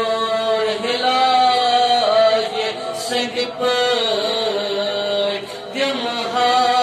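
A man's solo voice singing a Kashmiri naat, a devotional poem in praise of the Prophet, into a microphone, in long held notes that glide and waver between short breaths.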